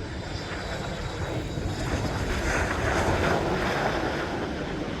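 Jet aircraft flying past with an even rushing engine noise that swells to a peak about three seconds in and then fades, with wind buffeting the microphone.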